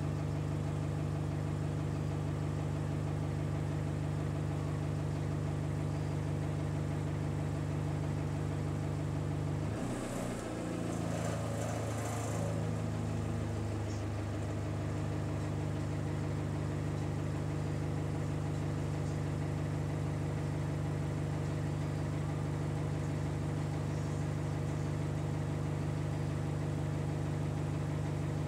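Bus diesel engine running steadily, heard from inside the passenger saloon. About ten seconds in there is a brief hiss and the engine note shifts for a few seconds before settling again.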